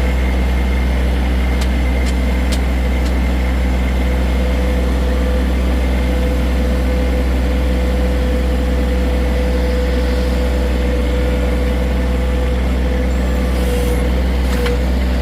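John Deere 1023E compact tractor's three-cylinder diesel engine running steadily, with a steady high tone over the low engine note.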